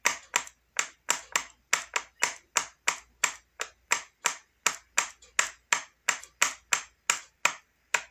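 A steady, evenly spaced run of sharp clicks, about three a second.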